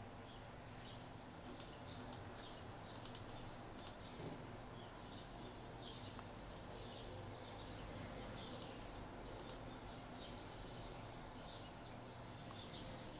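Computer mouse clicking: a quick run of single and double clicks in the first four seconds, then two more clicks about eight and a half and nine and a half seconds in, over a faint steady hiss.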